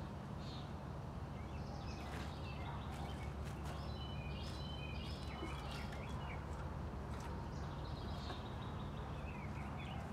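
Birds chirping in short, broken phrases over a steady low background rumble, with a few faint clicks.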